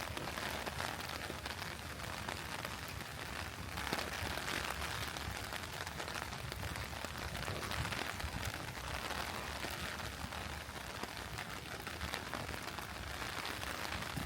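Steady rain falling, an even hiss of patter with no pauses.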